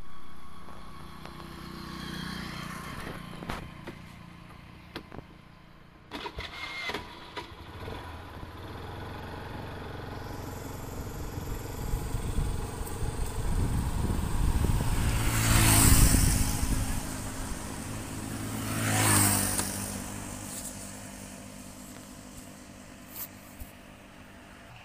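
Road traffic: vehicles pass close by, the two loudest about two-thirds of the way in, each rising and fading away. There are a few sharp knocks early on and a low traffic background throughout.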